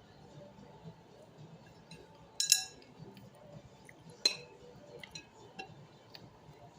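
A spoon clinking against a dish twice: a bright ringing clink about two and a half seconds in and a second, shorter one a couple of seconds later, with a few faint ticks after.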